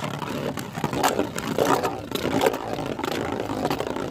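Two Beyblade spinning tops whirring and clattering against each other in battle, with many quick knocks throughout.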